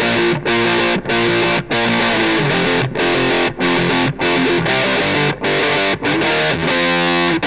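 Distorted electric guitar playing a fast punk-rock chord riff, layered with a loop pedal. The chords are cut short in a steady rhythm, and one chord is let ring near the end.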